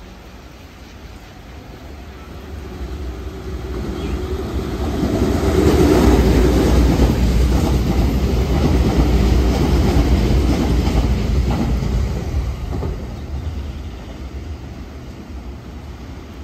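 Nankai Railway electric commuter train passing through the station without stopping. Its running noise builds from about two seconds in, is loudest through the middle as the cars go by, and fades as the train moves away.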